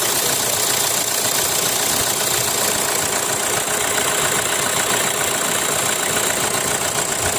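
Kia Sportage engine idling steadily, with an even mechanical hiss and no abnormal noise. The earlier noise came from a faulty alternator pulley, which has now been replaced.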